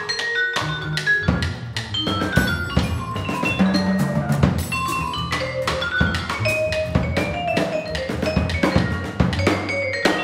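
Jazz sextet playing: a drum kit with busy drum and cymbal strokes, ringing vibraphone notes, and low bass notes underneath.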